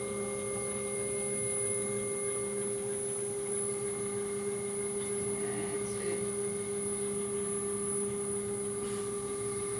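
Steady machine hum with several fixed tones from the water-therapy tank's running equipment.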